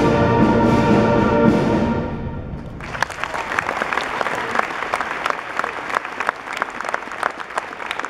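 School concert band holding its final chord, which fades out about two seconds in. The audience then breaks into steady applause.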